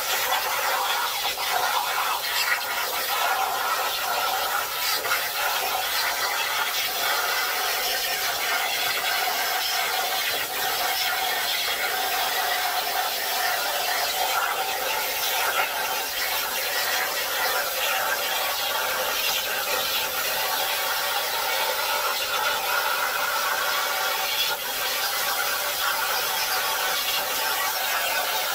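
Jasic Cut 45 air plasma cutter's torch cutting sheet metal on a DIY CNC table: a steady hiss and crackle with a faint whine in it, running without a break.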